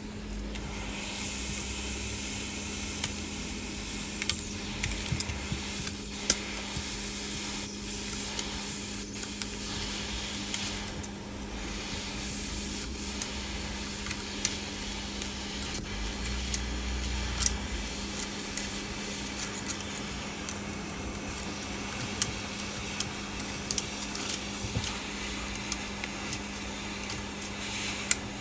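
Hot-air heat gun blowing steadily, a hiss with a steady hum under it, while scattered small clicks and ticks come from the broken back glass of an iPhone 11 being worked loose.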